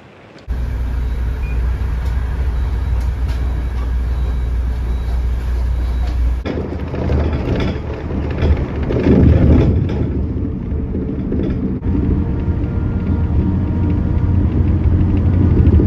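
Road vehicle driving at speed on a highway: steady low engine and tyre rumble heard from inside the cabin, starting about half a second in.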